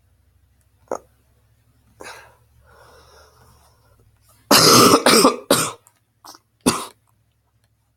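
A man at the microphone clears his throat, then coughs several times in quick succession about halfway through, the coughs loud and close to the microphone.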